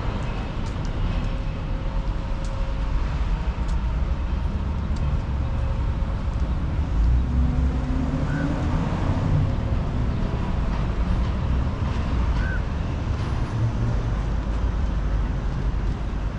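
Steady low rumble of vehicle traffic on a town street.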